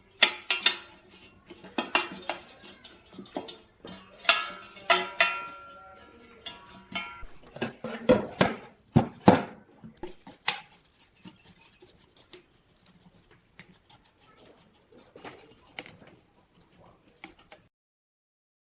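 Metal objects clinking and knocking together in a string of sharp clanks, some ringing briefly, for about ten seconds, then lighter scattered taps.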